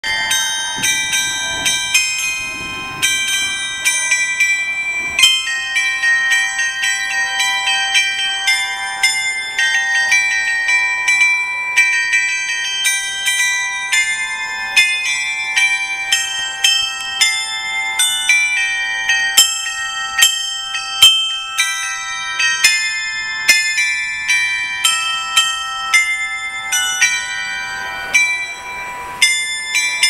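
Clock-tower bells playing the evening chime tune: a steady run of struck bell notes, several a second, at changing pitches, each ringing on into the next.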